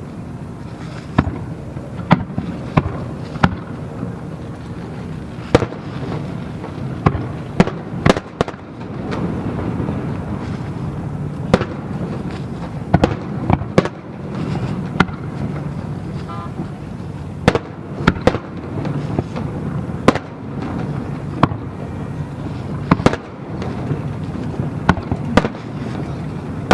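Aerial fireworks shells bursting: a long, irregular string of sharp bangs, sometimes several in quick succession, over a steady low rumble.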